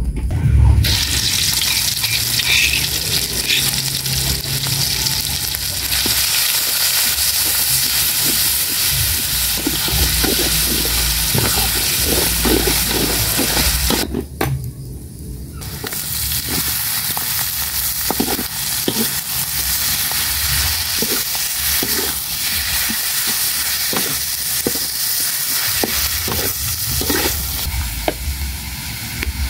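Oil sizzling in an aluminium wok over a wood fire as seasoning paste and then greens are stir-fried, with a metal spatula clicking and scraping against the wok. The sizzle drops away briefly about halfway through; the spatula strokes come more often in the second half.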